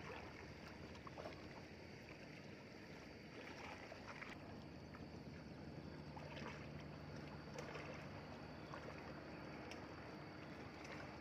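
Shallow muddy pond water sloshing with scattered light splashes as several people wade and grope by hand along a net for fish.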